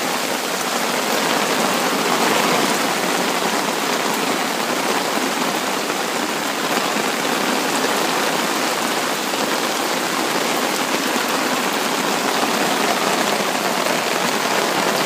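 Heavy rain pouring down onto a river and its gravel bank: a steady, even hiss of drops hitting water and stones.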